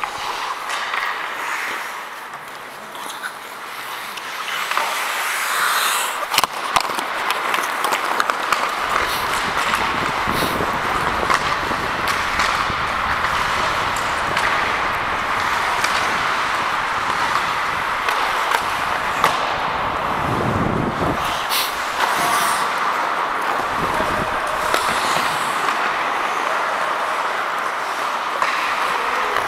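Ice hockey in play: skate blades scraping and carving the ice, with sharp clacks of sticks and puck. It gets louder about five seconds in.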